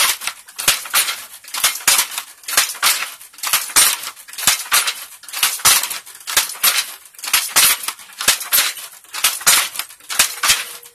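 Wooden hand loom being worked: the beater and shuttle clatter in a steady rhythm of sharp wooden knocks and clacks.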